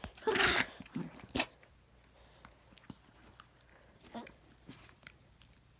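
Dog coughing and hacking, trying to bring something up: a loud rough hack in the first second and a sharp shorter one just after, then only faint small clicks of the mouth.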